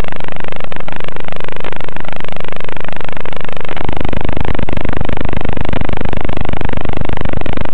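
Loud, distorted buzz and hiss on a micro drone's analog FPV video feed, with tones wavering up and down in pitch. It turns harsher and denser about four seconds in.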